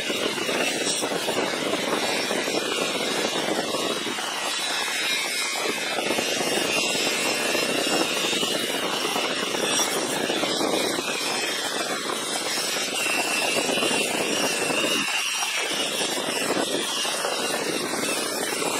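Electric polisher and shop vacuum running steadily while the steel handle of an old 1/2-inch Plomb ratchet is buffed against a cloth buffing wheel. The rubbing noise eases twice, around four and fifteen seconds in, as the piece is shifted on the wheel.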